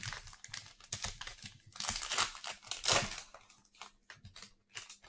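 A trading-card pack wrapper being torn open and crinkled in the hands. Near the end this gives way to a few light ticks as the cards are handled.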